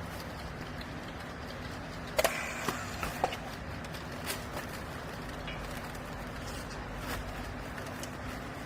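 Steady low hum of a hydraulic baler's motor and pump running, with a few sharp knocks about two to three seconds in.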